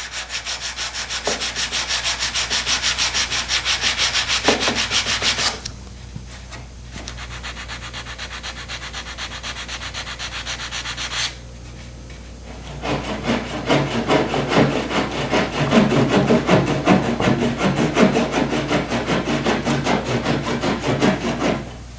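Sandpaper worked by hand in quick back-and-forth strokes over hardened epoxy filler on a wooden frame, truing up the surface. The strokes go softer about five seconds in, stop briefly near eleven seconds, then resume heavier until just before the end.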